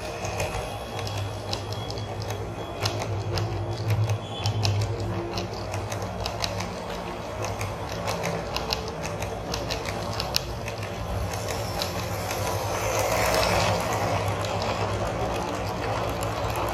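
HO scale model train running along its track: a steady low motor hum with irregular clicking and rattling of wheels on the rails. The noise swells louder for a couple of seconds near the end as the coaches pass close.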